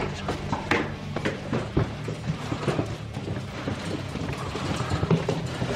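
Wire pet-circle panels rattling and clicking as they are carried, with irregular knocks of footsteps.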